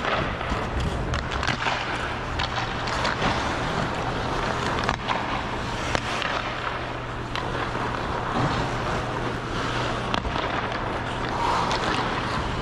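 Ice skate blades gliding and scraping on rink ice: a steady hiss with scattered sharp clicks, over a steady low hum.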